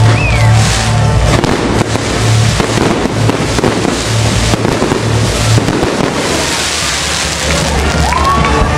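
Fireworks display: a dense crackling and popping of bursting fireworks, thinning out near the end.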